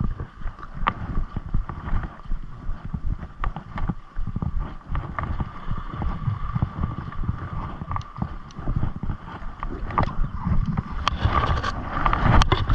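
Wind buffeting the microphone over small waves lapping at a rocky shoreline, with scattered light clicks; it grows louder near the end.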